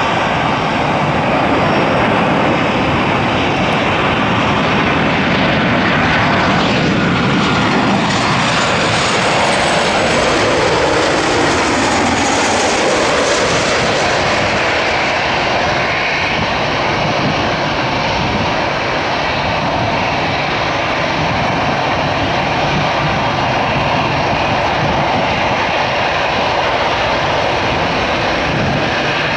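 Boeing 737-800's CFM56-7B turbofan engines on landing approach. The jet noise drops in pitch as the airliner passes, about six to twelve seconds in, then carries on as a steady rumble while it lands and rolls away down the runway.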